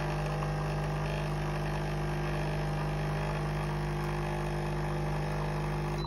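Breville espresso machine's pump buzzing steadily as it pulls a double shot of espresso. It cuts off suddenly at the very end when the shot finishes.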